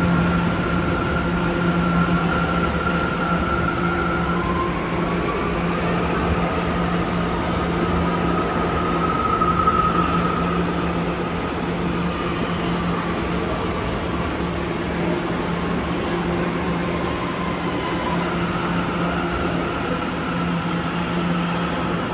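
New York City subway train running, with a steady low hum and a high whine that slides up a few seconds in and back down near the end.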